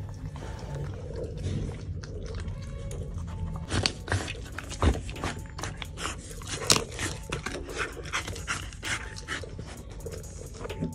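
A Siberian husky eating roast chicken, with wet chewing and sharp crunching as it bites into the meat and bones. The crunches come close together and are loudest from about four seconds in.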